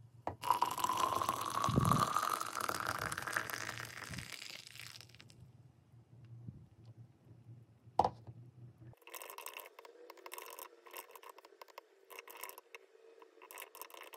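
Freshly boiled water poured from a kettle into a stainless steel bottle of roasted barley for barley tea, the pitch of the filling rising as the vessel fills until the pour stops about five seconds in. A single sharp knock about eight seconds in, then quick keystrokes of typing on a computer keyboard.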